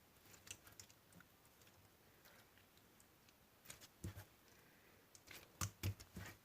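Slime being pressed and stretched by hand, giving off faint, scattered small clicks and pops, with a louder cluster of pops near the end.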